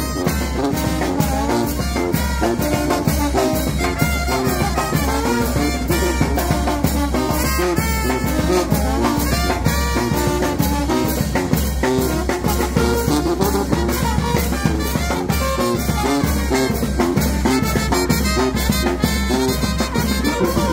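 Live brass band playing: sousaphone, trumpet and trombone over a bass drum, clashing hand cymbals and a snare drum, keeping a steady beat.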